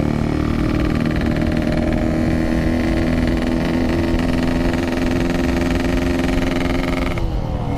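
Yamaha RX-King 135cc two-stroke single-cylinder engine running steadily under way through a packing power aftermarket exhaust, with a husky, raspy note. Near the end the revs drop as the throttle closes.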